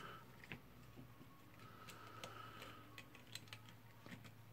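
Faint, scattered small clicks and taps of gloved fingers handling the carbon brush holder in the plastic motor housing of a DeWalt D25123 rotary hammer drill, with a faint low hum underneath.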